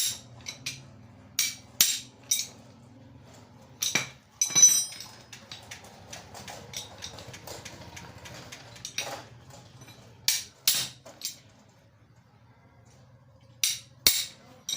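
Sharp metal knocks and clinks of tools striking the parts of a motorcycle front shock absorber being tightened, coming in small clusters, one with a short metallic ring about four and a half seconds in.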